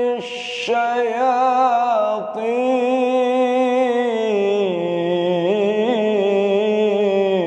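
Solo male voice reciting the Quran in melodic tilawah style, unaccompanied, drawing out long ornamented notes with a wavering pitch. A short hissing consonant comes just after the start, and there is a brief break about two seconds in.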